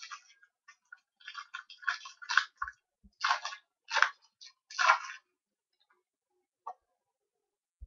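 Trading cards and their crinkly pack wrapper being handled, in a quick run of short crackling rustles over about five seconds, then a single small click near the end.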